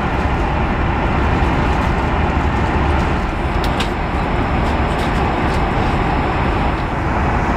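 Steady cabin noise of an Airbus A330-300 airliner in flight: a constant rush of airflow and engine noise, heaviest in the low end. A few faint clicks come near the middle.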